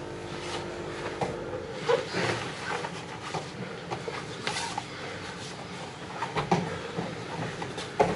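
Brazilian jiu-jitsu sparring on foam mats: scattered thuds and slaps of bodies, hands and feet on the mats and the rustle of gi cloth, over a steady hiss of room noise.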